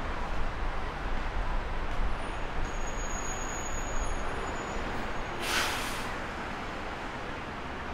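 City road traffic: a steady hum and rumble of passing cars and buses, with a short sharp hiss about five and a half seconds in.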